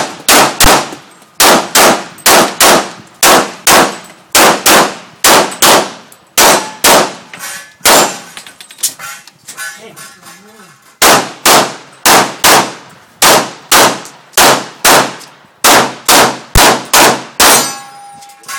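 Semi-automatic pistol fired rapidly in a timed shooting stage, mostly in quick pairs of shots, with a pause of about two seconds a little under halfway through before the shooting resumes. The shots are loud and sharp.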